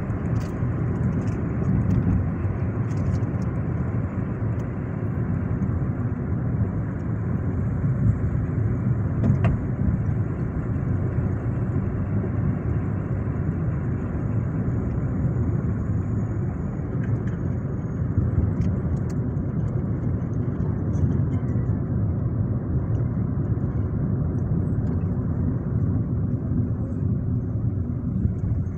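Steady low rumble of a car's engine and tyres heard from inside the moving car's cabin.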